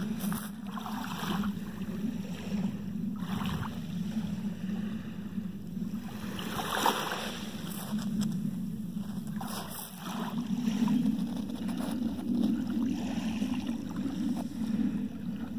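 Small waves lapping at the edge of a shallow pebbly beach, soft swishes a few seconds apart over a steady low rumble.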